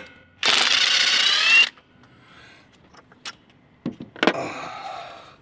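Cordless power tool spinning a socket on a long extension for about a second, its pitch rising slightly as it backs out the clutch slave cylinder's mounting bolt. A sharp click follows, then a louder clack near the end that fades.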